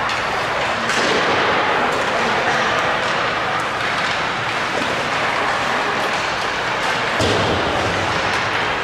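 Continuous crowd and game noise echoing in a large hall: indistinct spectator chatter with a few sharp thumps, one near the start and one about seven seconds in.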